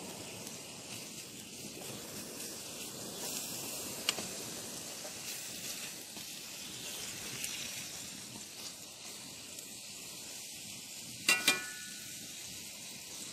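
Bacon and eggs frying in a cold-handle skillet, a steady sizzle with a light crackle. There is one brief louder sound about two seconds before the end.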